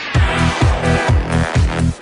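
Electronic dance music: a heavy kick drum about twice a second under sustained synth chords, with the beat coming in right at the start.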